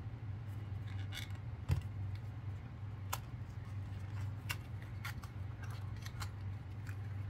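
Small cardboard product box being opened by hand: scattered sharp clicks and crackles of card and paper, with one low thump nearly two seconds in, over a steady low hum.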